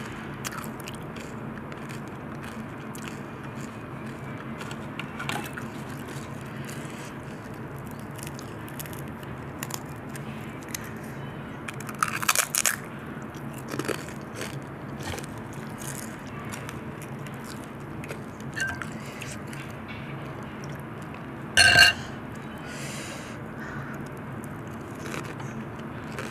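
Pani puri being eaten: a crisp puri shell cracked open with the fingers, then crunched and chewed, with scattered small crackles and two louder crunches, one near the middle and one about three-quarters of the way through, over a steady low background hum.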